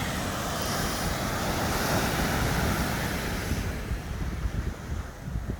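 Surf washing onto a beach, a wave swelling up and easing off in the last couple of seconds, with wind buffeting the microphone.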